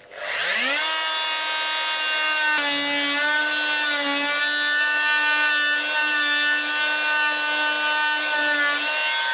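Small fine-bladed electric saw starting up and running at a steady high whine as it is run up the lap joint between a clinker plank and the stem, trimming the half lap a millimetre at a time for a close fit. Its pitch dips slightly about two and a half seconds in.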